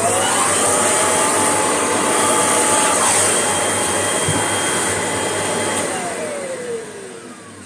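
Kirby vacuum cleaner switched on, running steadily with a high whine for about six seconds, then switched off, its motor winding down with a falling whine.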